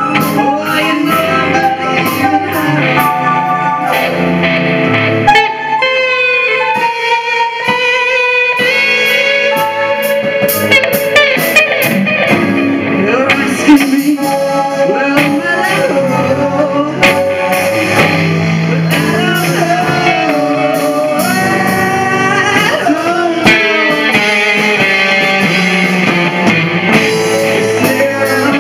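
A live band playing loudly: guitar and drum kit, with a voice singing a melody over them.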